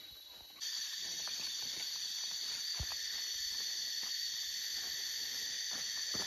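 Forest insects droning a steady high-pitched buzz that sets in sharply about half a second in, with a few faint knocks.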